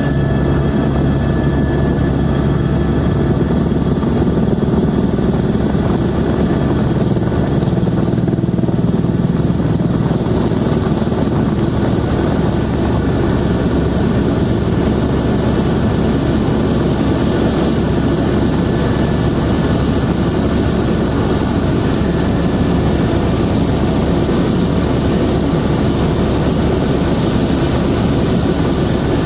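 Helicopter in flight: steady, loud turbine and rotor noise with an even hum, unchanging throughout.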